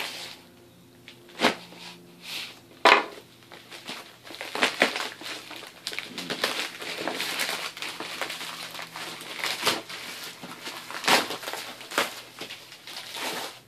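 Plastic Priority Mail mailer being slit with a pocket knife and then pulled open: a couple of sharp snaps in the first few seconds, then a long stretch of plastic crinkling and rustling with sharp rips as the package is worked out.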